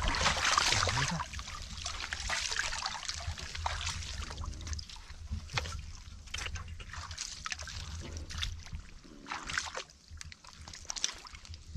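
Hands splashing and sloshing in shallow, muddy water while groping for catfish. The splashing is loudest in the first second or two, then comes in fainter, scattered splashes.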